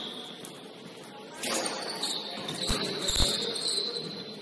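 A basketball bouncing on the court: a thud about a second and a half in, then two or three more near the end, with a thin high squeak held through the second half.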